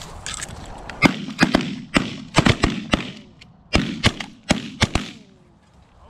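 A volley of shotgun fire from several hunters: about a dozen sharp shots in quick, overlapping succession, starting about a second in and ending about five seconds in.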